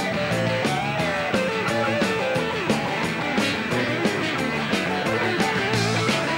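Rock and roll band playing live in an instrumental break: an electric guitar solo with bent notes over bass and a steady drum beat.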